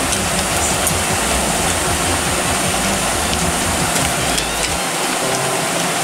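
Eggplant and manganji peppers sizzling as they stir-fry in a frying pan: a steady hiss, with a low rumble underneath that stops about five seconds in.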